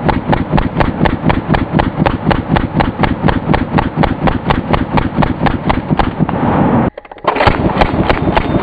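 Thompson submachine gun firing .45 ACP on full auto: a long continuous burst at about ten shots a second. It breaks off about seven seconds in, and a second burst follows.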